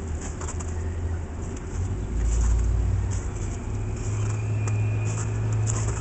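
Low rumble of passing street traffic, swelling about two seconds in, with a steady hum near the end. Light crunching of footsteps in snow sounds over it.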